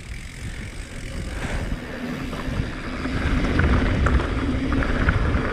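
Wind buffeting the microphone and mountain-bike tyres rolling over dirt and loose gravel as the bike picks up speed downhill, growing steadily louder. A few light ticks and rattles can be heard in the second half.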